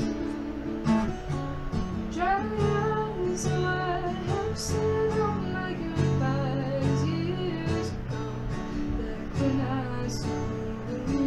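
Acoustic guitar strummed in steady chords, with a woman singing along from about two seconds in.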